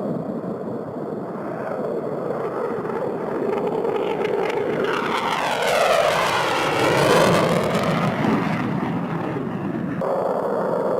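Fighter jet engines at full power on takeoff. The noise swells as a jet passes close, with a sweeping rise-and-fall in pitch, then fades, and changes abruptly near the end.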